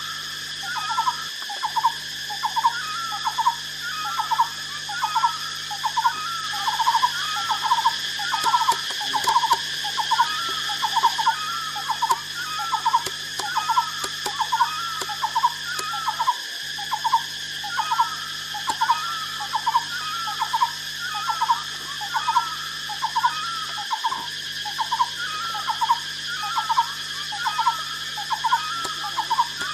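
A short call repeating evenly about every second and a half, over a steady high insect drone.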